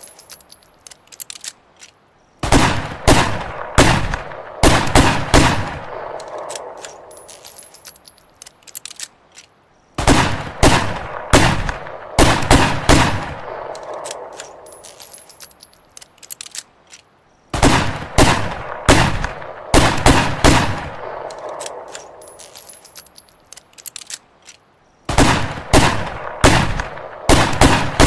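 Ruger Redhawk revolver shots: quick volleys of about six shots spread over roughly three seconds, each volley trailing off in a long echo, repeated four times at even intervals.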